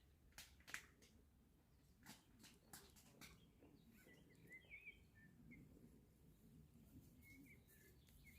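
Faint bird chirps, a short run of them about four seconds in and a few more near the end, over near-silent outdoor quiet with a few faint clicks in the first few seconds.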